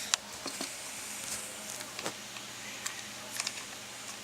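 Scattered small clicks and rustles of plastic power-supply cables and connectors being handled while a SATA power cable is fitted to a hard drive, with a sharp click just after the start.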